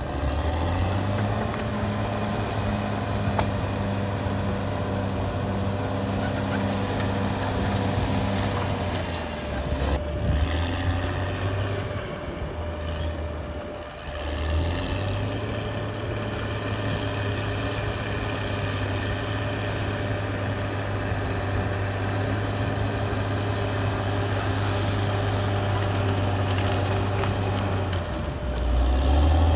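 Caterpillar D6R XL bulldozer's diesel engine running steadily under working load with a constant whine. The engine note eases and shifts between about nine and fourteen seconds in, then settles back to a steady pull and swells near the end.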